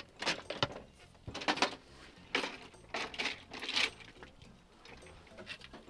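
Aluminium sit-ski frame and its skis being lowered and set down on pavement, clattering and knocking several times over the first four seconds.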